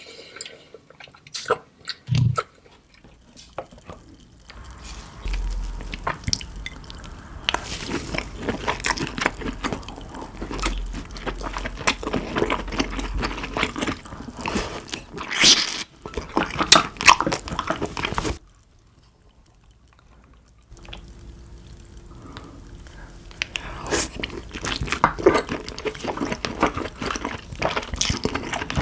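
Close-miked king crab eating: wet chewing with dense crackles and clicks of crab meat and shell, broken by a short pause about two-thirds through.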